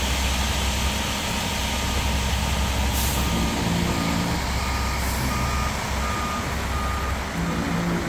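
Ready-mix concrete truck's diesel engine running steadily while concrete pours down its chute, with a back-up alarm beeping repeatedly from about three and a half seconds in.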